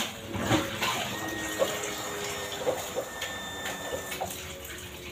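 Tap water running steadily into a kitchen sink while dishes are washed, with a few light clinks of dishware.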